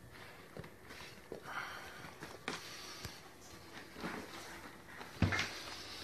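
Rustling and scattered soft knocks as young macaws shuffle on hay and wood-shaving bedding, with a louder thump about five seconds in.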